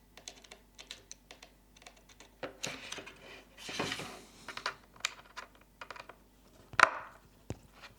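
Small, irregular clicks and taps of a precision screwdriver working tiny screws out of an iPad's internals. There is a short scratchy rustle about four seconds in and a louder tap near seven seconds.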